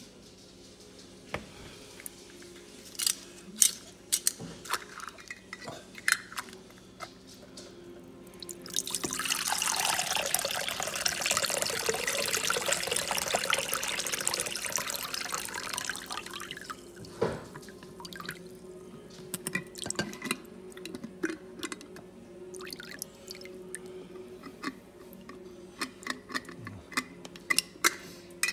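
Liquid running and splashing into a bowl that already holds liquid, as a soaked mass is squeezed out by hand above it. The sound lasts about eight seconds, from roughly nine seconds in. Before and after it come scattered drips, clicks and knocks from jars and the bowl being handled.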